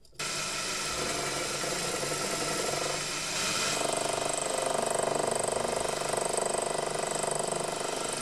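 Proxxon PD 250/e mini lathe running while a boring bar cuts inside a spinning steel tube. The machining noise starts abruptly just after the opening and grows louder, with a steadier tone, about four seconds in.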